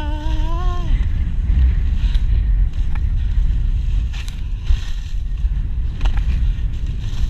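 Wind rumbling on a body-worn camera's microphone as the rider slides fast through snow, a steady low buffeting with the hiss of the snow under it. A voice lets out a held, rising call during the first second.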